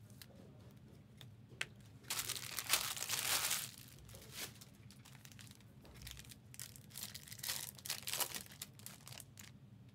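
A trading-card pack wrapper being torn open: one loud crinkling tear about two seconds in, then scattered shorter crinkles and clicks as the wrapper and cards are handled.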